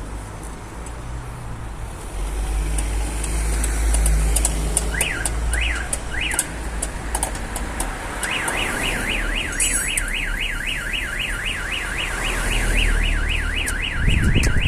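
Three short rising-and-falling chirps about five seconds in. About eight seconds in, a car alarm siren starts a fast up-and-down warble, about three to four sweeps a second, and keeps going. It is the tilt sensor of an aftermarket Starline alarm on a Toyota Prius being set off as the car is jacked up.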